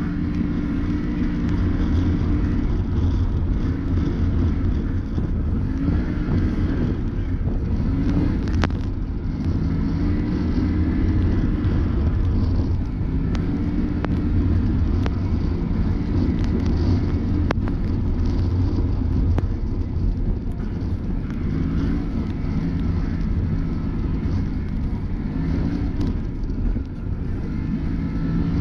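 Can-Am Maverick Sport X mr side-by-side engine running under way, its pitch rising and falling over and over as the throttle is worked, with scattered sharp clicks and knocks.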